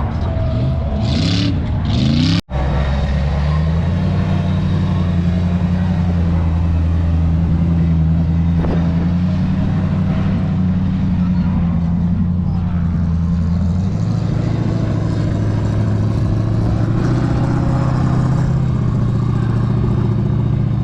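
Car engine revving up, then after a brief cut, an engine held at steady high revs with a deep, even drone that shifts to a slightly different pitch about two-thirds of the way through.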